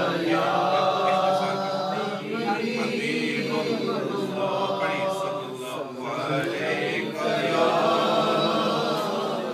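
A man's voice chanting devotional verses unaccompanied, in long, drawn-out melodic phrases that bend up and down in pitch.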